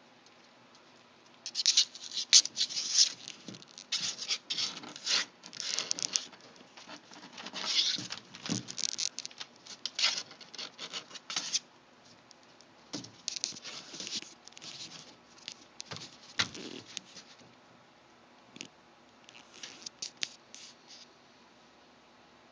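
Week-old puppies squirming and scratching about on their bedding, in irregular bursts of rustling with short lulls.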